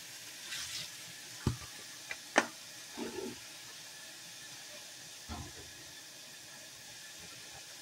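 Tap water running into a stainless steel sink, a steady hiss, with a few sharp knocks and clicks about a second and a half to two and a half seconds in.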